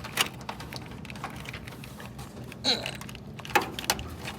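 Scattered small clicks and light knocks of wiring and connectors being handled and pulled loose during removal of the car's old wiring harness. There is a short scrape about two and a half seconds in and a sharper click about a second later.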